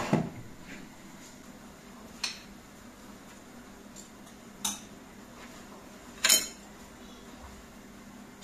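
A spoon clinking and scraping against a frying pan and a plate while food is served out: a few short separate clinks a couple of seconds apart, the loudest, a quick double, about six seconds in.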